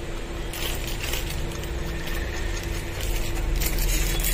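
Metal air-hose fitting being screwed by hand into the air inlet of a pneumatic rivet gun, threads rubbing and clicking, over a steady hum and low background rumble.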